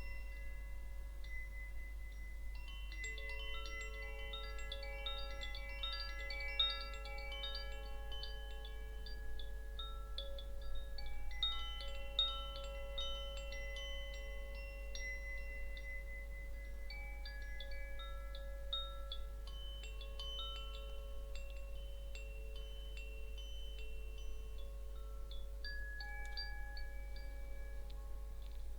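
Wind chime being rung, struck again and again so that many clear tones ring on and overlap.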